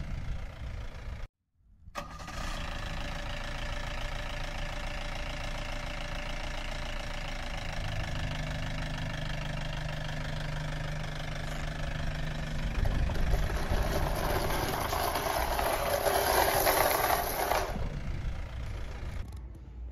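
A 1942 Ford GPW jeep's four-cylinder flathead engine running steadily, after a brief cut-out near the start. It grows louder for a few seconds near the end, then fades.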